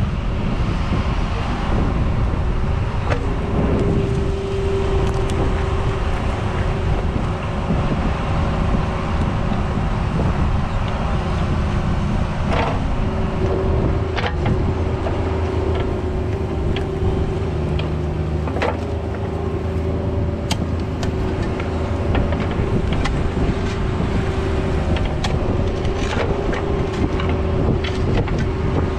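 Cat 304 mini excavator's diesel engine running steadily while it digs a trench, with a steady whine setting in a few seconds in and scattered sharp knocks and scrapes.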